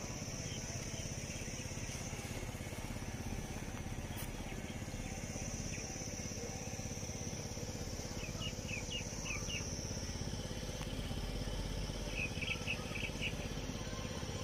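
Outdoor ambience: a steady high insect drone over a low rumble, with birds chirping in quick runs of notes, once past the middle and again near the end.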